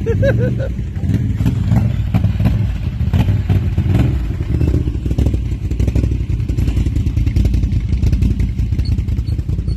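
ATV engine running hard under load with its tyres spinning in deep mud, mud and water spattering and clattering against the machine.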